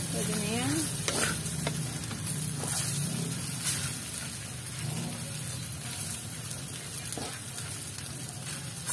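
Fish cake strips and sliced onion frying golden brown in an aluminium wok, sizzling steadily, while a wooden spatula stirs them with a few short scrapes against the pan.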